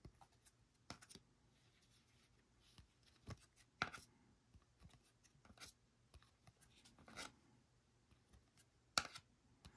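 Faint, scattered clicks and rubs of glossy Panini Prizm trading cards being flipped through by hand, each card slid off the front of the stack and tucked behind the others, with the sharpest click near the end.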